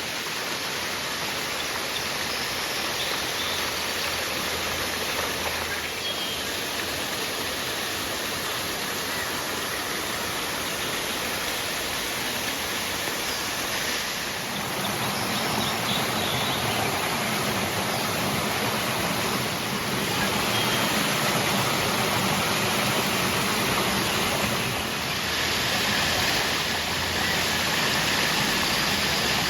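River water rushing and splashing in a steady flow, a little louder in the second half.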